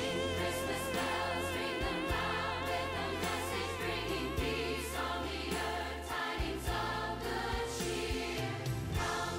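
Choir singing a Christmas song over band accompaniment, with long held notes in vibrato over a steady bass and a few drum hits.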